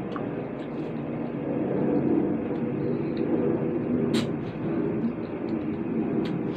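A steady rumbling background noise, over which come a few short wet clicks and smacks of biting into and chewing watermelon, the sharpest about four seconds in.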